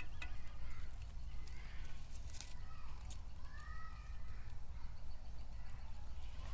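Birds calling with short chirps, including a clear rising-and-falling call a little past the middle, over a steady low rumble. A few sharp clicks come about two and a half to three seconds in.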